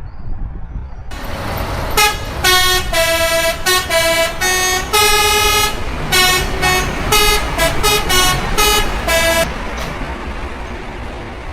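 Truck's custom melody horn playing a quick tune of changing notes, mostly short with a few held, over the truck's engine and road noise. The engine noise comes in about a second in, and the tune breaks off about two seconds before the end.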